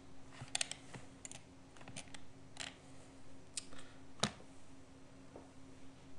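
Computer keyboard keystrokes and clicks, sparse and irregular, with the sharpest click a little past the middle. A steady low hum runs underneath.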